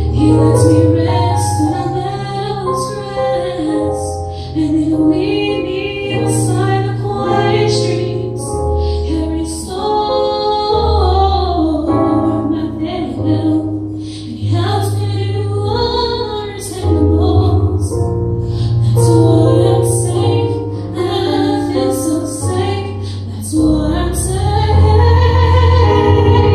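Gospel choir singing, a female lead voice on a microphone above the group, accompanied by an electronic keyboard playing held low bass notes and chords.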